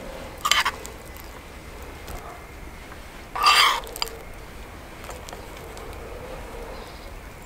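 A metal spoon scooping thick creamy sauce out of a ceramic bowl and dropping it onto raw button mushrooms in a glass bowl: two short wet scraping squelches about three seconds apart, the second louder and longer.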